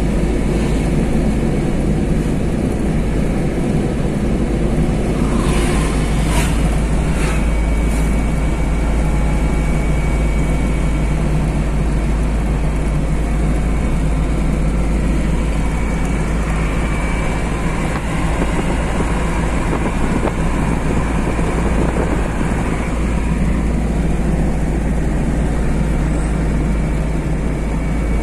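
Vehicle driving along a road, heard from inside: a steady rumble of engine and tyres at an even speed, with a few brief sharp clicks about six to eight seconds in.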